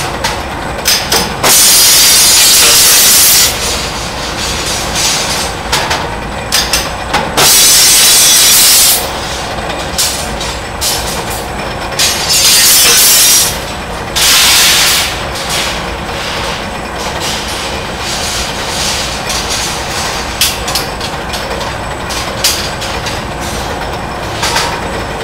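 Rebar-processing machine at work: a steady mechanical din with scattered clicks and clanks, broken by four loud hissing blasts of one to two seconds each.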